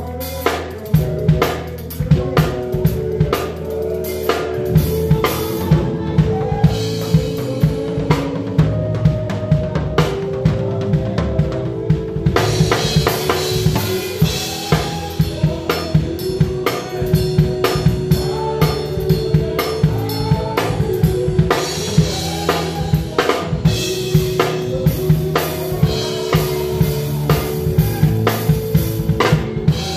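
A live band playing an upbeat gospel song, led by a close drum kit: steady bass drum, snare and rimshot hits under held keyboard chords. The cymbals come in much stronger a little under halfway through.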